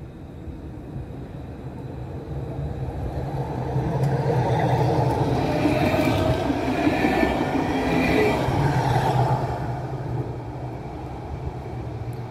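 Tram passing by: a rumble that builds over the first few seconds, is loudest in the middle with a high whine over it, then fades toward the end.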